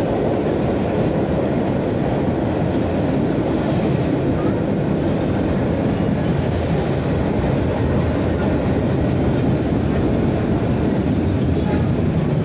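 Vintage R33/R38 New York City subway cars running at speed, heard from inside the car: a steady, loud noise of wheels on the rails and the moving car.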